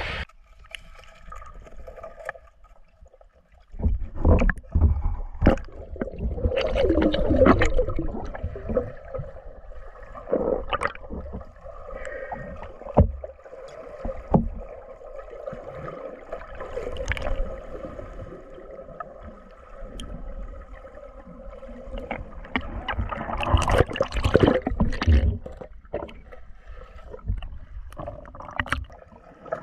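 Water sloshing and gurgling in irregular surges, with knocks and low thumps, and a faint steady hum of several tones underneath.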